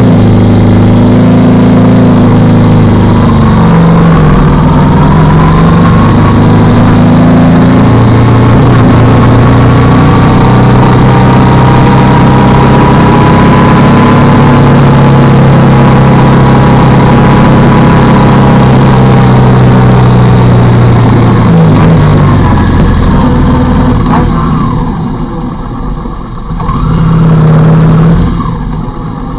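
Motorcycle engine running on the move, heard from the bike itself under heavy wind rush. The engine note holds steady with a dip about four seconds in, falls away about twenty-two seconds in as the bike slows, and picks up in a short burst of throttle near the end.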